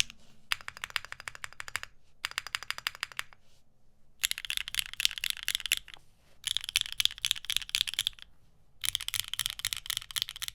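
Typing on a Neo65 mechanical keyboard with lubed and filmed Gateron Khonsu switches on an aluminium plate, a fast run of sharp, clacky keystrokes. It comes in five bursts of a second or two each with short pauses between.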